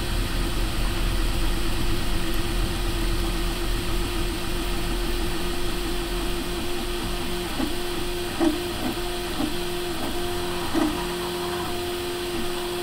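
Prusa i3 MK2S 3D printer printing while standing on concrete blocks that damp its vibration. Its stepper motors hold a steady tone over a steady hiss, and about two-thirds of the way through the tone breaks and jumps in short steps as the print head changes moves.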